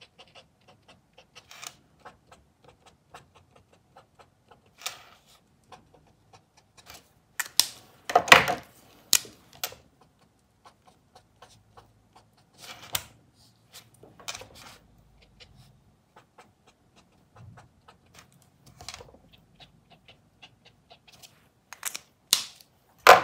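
Acrylic brush pen tip dabbing and stroking on black cardboard: a run of small taps and scratches, with a few louder knocks as the pens are handled, the loudest about eight seconds in and again near the end.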